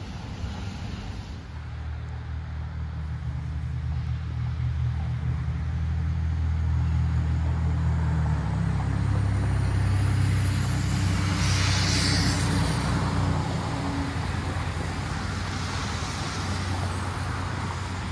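A road vehicle driving past: a low engine hum, with a shift in engine pitch about halfway through, and tyre noise that swells to a peak about two-thirds of the way in, then fades.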